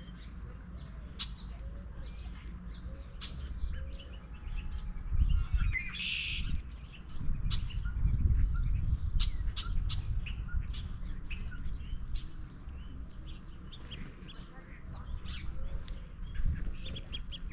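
Small songbirds chirping, many short high chirps overlapping throughout, over a steady low rumble. A short rushing sound comes about six seconds in.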